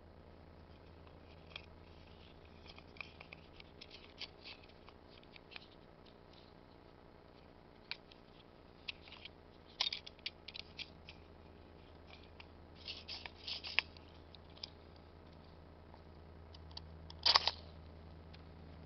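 Scattered light clicks and scrapes as an Ultimate Survival BlastMatch fire starter is opened and handled. Near the end comes a short, loud scrape: the striker is drawn along the ferrocerium rod to throw sparks onto the tinder.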